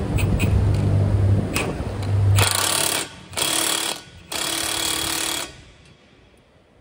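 Milwaukee Fuel brushless cordless impact wrench driving a fastener on the front suspension: a steady low drone for about two and a half seconds, then three short bursts of hammering, after which it stops.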